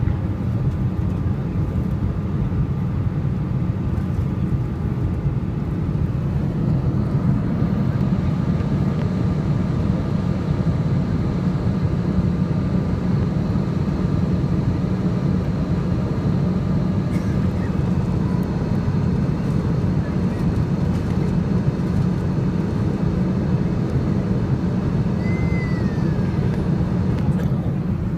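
Steady low rumble of an Air India Boeing airliner's cabin noise, engines and airflow, while descending on approach. A short falling tone sounds near the end.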